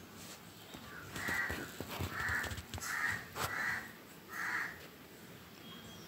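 Green-cheeked conure giving five harsh squawks in quick succession, starting about a second in.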